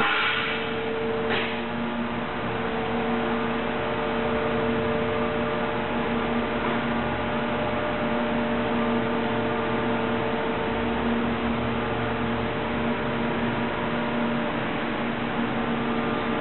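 Steady hum and whir of a powered-up industrial thermoforming machine, two constant humming tones over an even rushing noise, with a single click about a second in.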